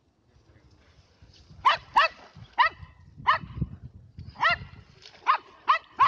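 A dog barking, about seven short, sharp barks at uneven intervals that start about a second and a half in.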